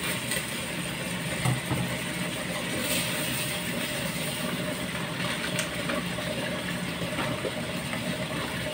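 Steady mechanical hum, with a few light clicks and knocks of things being handled on a kitchen counter.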